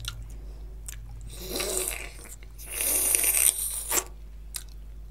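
Close-miked eating of bhatura dipped in mutton curry by hand: a short wet sound, then a loud hissy slurp as a mouthful is taken about three seconds in, followed by a few sharp mouth clicks.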